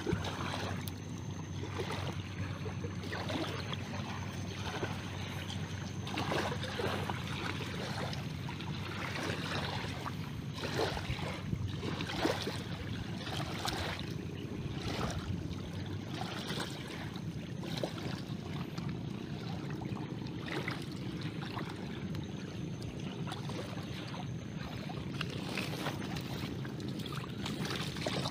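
Feet splashing and sloshing through shallow, muddy floodwater in irregular steps, over a steady trickle of running water.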